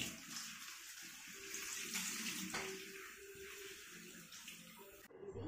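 Kitchen tap water running and splashing over a plate of dabai fruit being rinsed in a stainless steel sink, with a few light knocks. The water sound cuts off suddenly near the end.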